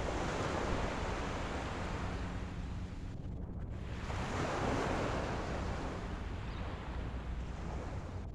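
Ocean waves breaking and washing in, two swells about four seconds apart, with a low wind rumble on the microphone.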